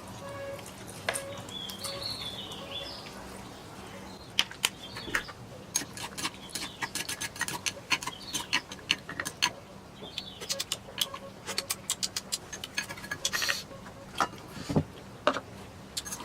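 Small birds chirping, with a faint steady hum underneath. From about four seconds in come quick, irregular runs of sharp clicks and taps, louder than the birds.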